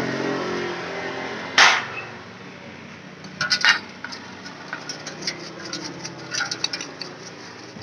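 Metal clinking against a steel basin, one sharp clink about one and a half seconds in and a few more a couple of seconds later, then a paintbrush scrubbing a wet centrifugal clutch carrier plate with light scratchy taps.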